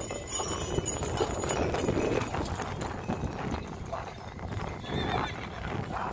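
Horse hooves clip-clopping on dirt ground, with a horse neighing, over a crowd's chatter.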